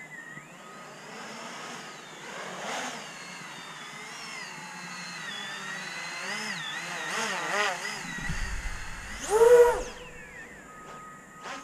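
Motors and propellers of an 800 mm MaydayQuadWorks Patriot X X-Class racing quadcopter whining in flight, the pitch wandering up and down with throttle. About nine and a half seconds in there is a loud surge that rises and then falls in pitch.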